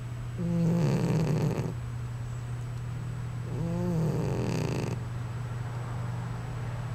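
A sleeping cat snoring: two drawn-out snores about three seconds apart, over a steady low hum.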